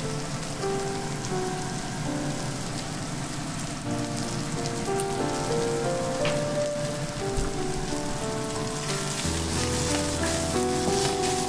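Minced pork and diced sausage sizzling in a nonstick frying pan as a wooden spatula stirs them, with light ticks and scrapes. The sizzle grows louder near the end. Soft background music plays over it.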